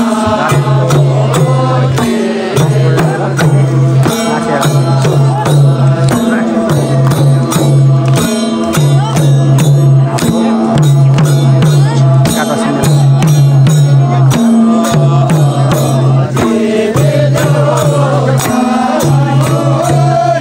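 Chanting of a ritual mantra, a low held refrain repeating about every two seconds, each time opening on a short higher note, over steady, evenly spaced percussion beats.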